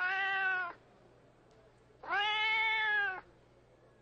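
Cats meowing: two long, drawn-out meows, the first fading out under a second in and the second, about a second long, beginning about two seconds in.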